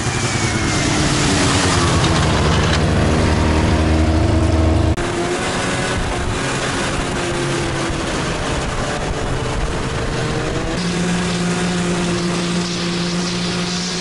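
Snowmobile engine running at speed across snow-covered ice, with a heavy rushing noise over it; its pitch drifts up and down as the speed changes. The sound shifts abruptly about five seconds in and again near eleven seconds.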